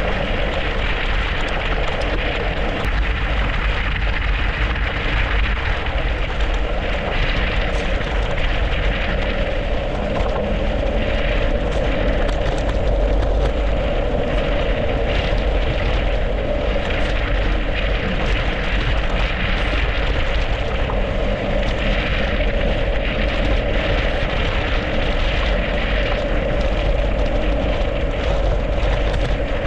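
Wind rushing over the microphone and mountain bike tyres rolling on a snowy, icy road during a fast descent: a steady, loud rush with a constant hum and scattered small crunches and clicks.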